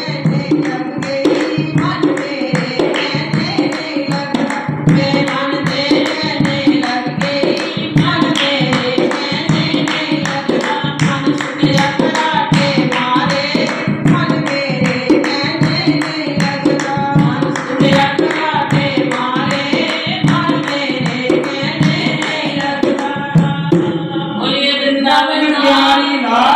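Devotional bhajan singing over percussion keeping a steady beat; the singing voice comes forward near the end.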